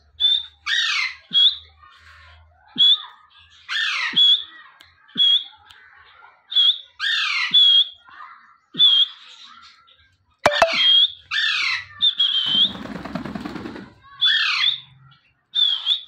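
An Alexandrine parrot gives a run of short, loud calls, roughly one a second. Each call is a clear high note with a quick falling squeak, and a harsher, rougher call comes about twelve seconds in.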